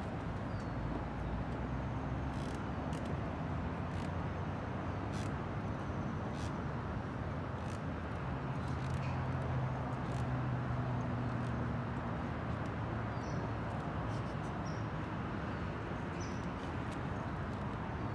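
Outdoor ambience: steady background noise with a low hum that grows louder around the middle, scattered light clicks, and a few faint high chirps.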